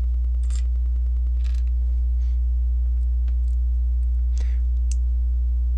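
Steady low electrical hum throughout, the loudest sound. Over it come a few soft clicks and brief rustles of plastic LEGO pieces being handled during the build.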